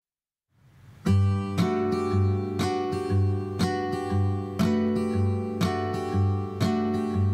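Background music: acoustic guitar strumming a steady rhythm, starting about a second in, the intro to a song.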